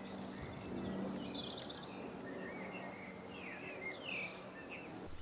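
Faint birdsong: short chirps and quick whistled glides from small birds, over a low steady hum.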